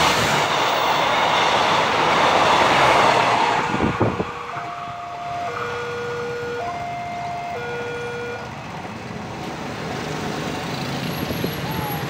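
KA Bandara YIA airport train passing close by at a level crossing, a loud rushing rumble that ends abruptly about four seconds in. After that, under quieter background noise, a level-crossing warning signal alternates between two tones, changing about once a second.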